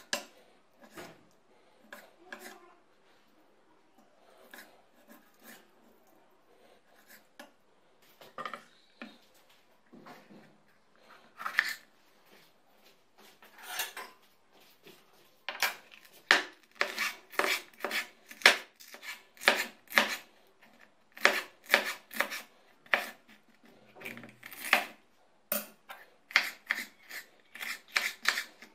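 Kitchen knife knocking on a wooden cutting board. There are a few scattered, quiet knocks while chicken breast is cut, then from about halfway a steady run of sharp taps, two or three a second, as a bell pepper is sliced into strips.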